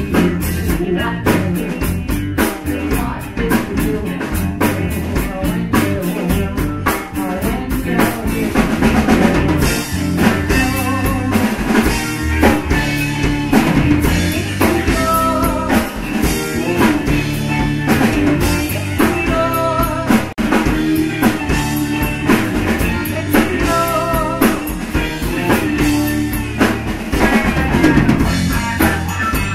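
Live rock-blues band playing: a drum kit keeping a busy beat under guitar and bass.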